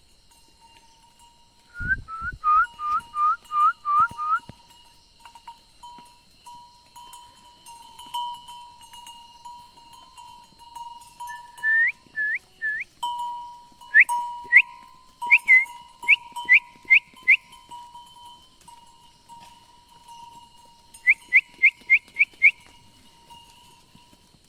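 Quick runs of short, sharp, rising whistled notes, about three or four a second, in four bursts of three to eight notes. A faint steady high hum runs underneath.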